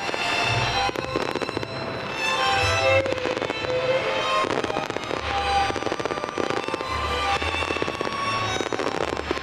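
Fireworks bursting and crackling over orchestral music with strings.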